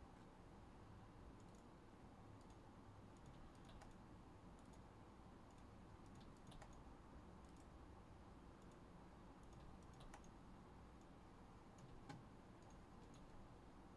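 Near silence with faint, scattered clicks of a computer mouse and keyboard.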